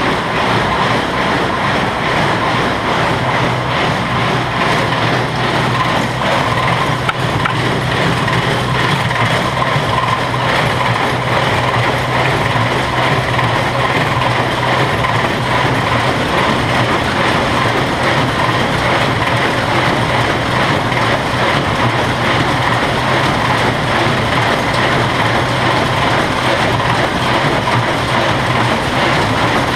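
New Holland 275 small square baler running at PTO operating speed, its finger feed mechanism and drive giving a steady, loud mechanical clatter with a constant hum underneath.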